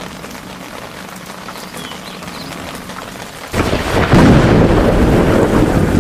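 Thunderstorm: steady rain, then a sudden loud clap of thunder about three and a half seconds in that rolls on.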